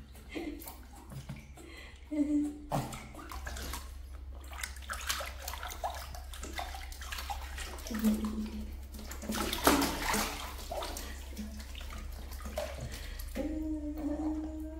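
Bath water splashing and sloshing irregularly as a baby monkey moves about in a small tub.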